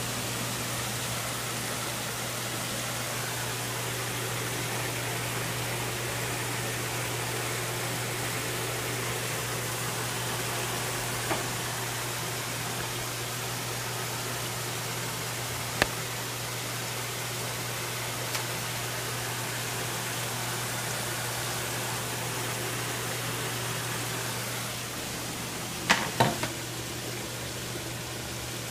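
Live-bait tank aeration and circulation: a steady hiss of bubbling, churning water over a low pump hum. A short cluster of sharp knocks comes near the end.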